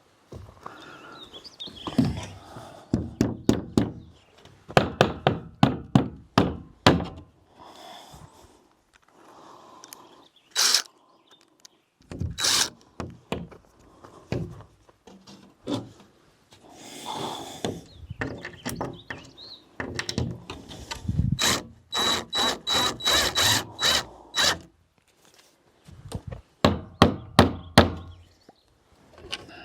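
Knocking and banging on the wooden outhouse as it is fastened together: bursts of sharp strikes, some in quick even runs, with short pauses between.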